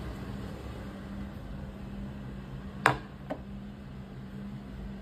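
A plate set down on a hard tabletop: one sharp clack with a brief ring about three seconds in, then a smaller knock, over a steady low hum.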